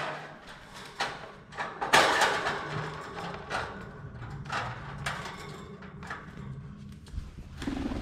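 A series of knocks and rattling clatters from a bamboo bird cage being handled, with a low rumble near the end.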